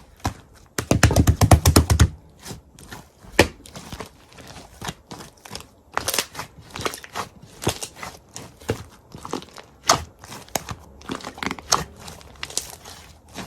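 Irregular crinkling and crackling clicks, like something being crumpled or handled, with a dense, loud run of rapid crackles about a second in.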